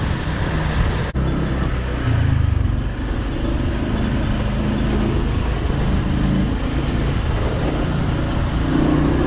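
Motor scooter engine running while riding, with wind rushing over the microphone; the engine note shifts up and down a little. The sound cuts out for an instant about a second in.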